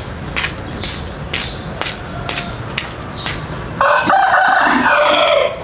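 A rooster crows once, a loud call about a second and a half long starting about four seconds in. Under it, sharp knocks repeat about twice a second.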